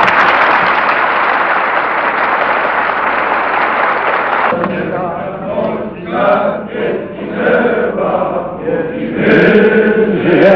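Deputies in a large assembly hall applauding, a steady, loud clatter that cuts off abruptly about four and a half seconds in. It gives way to a crowd of voices chanting together in rhythmic phrases.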